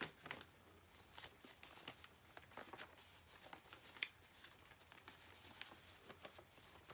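Faint, scattered rustling, tearing and clicking of packing tape and wrapping as a heavily taped parcel is opened by hand, with a sharper click about four seconds in.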